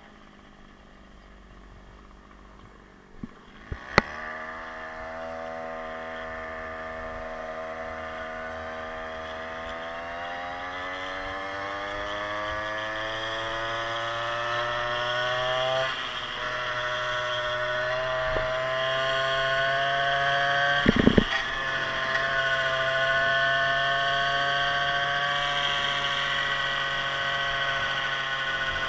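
52cc big-bore two-stroke engine of a motorized stand-up scooter, running low at first, then a few sharp clicks about four seconds in as it pulls away. Its pitch climbs steadily as the scooter speeds up, dips briefly, then holds high and steady, with a short thump a little past the twenty-second mark.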